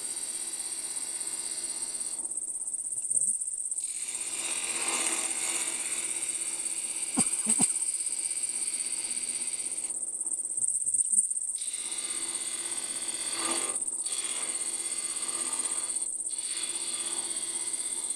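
Wood lathe running with a steady high-pitched whine, while a carbide tool cuts a cove into a spinning Bois d'Arc duck call barrel in short passes, with a few brief scraping or catching sounds.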